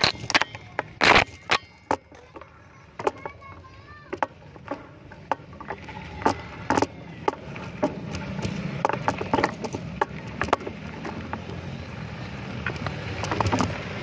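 Knocks, clicks and rattles of a handheld phone camera jostled on a moving bicycle, over a low rumble of riding and street noise that grows louder in the second half.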